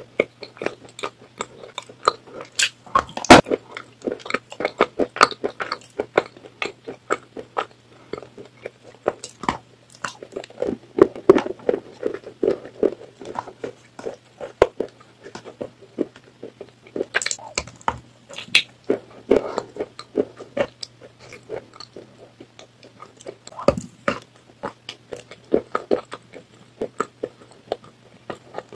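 A person chewing and crunching something dry and chalky close to the microphone: irregular crisp crackles and crunches with wet mouth sounds, the loudest crunch about three seconds in. A faint steady low hum runs underneath.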